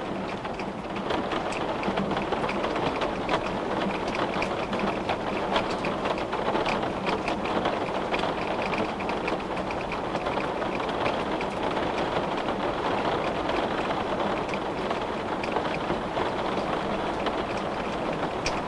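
Steady rain, drops pattering densely on hard surfaces with many small ticks, rising slightly about a second in.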